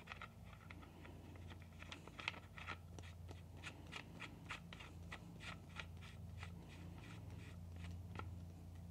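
Dead Air Mask HD .22 suppressor being screwed by hand onto the threaded barrel of a SIG P322 pistol: a faint run of small clicks and scrapes, about two or three a second, over a low hum.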